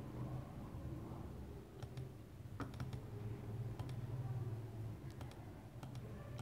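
A few faint, scattered clicks of a computer mouse over a low steady hum.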